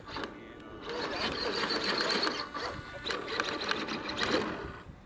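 Radio-control aerobatic model airplane's motor running at low throttle with the propeller turning, a dense sound with rapid ticking, louder from about a second in and dropping away near the end.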